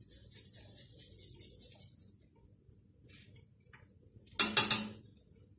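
Garlic clove rubbed on a small metal hand grater over a frying pan: quick rasping strokes for about two seconds. A little after four seconds comes a brief loud clatter of metal pan or utensil.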